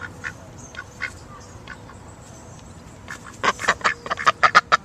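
Duck quacking: a few scattered quacks, then a rapid, loud run of quacks from about three and a half seconds in.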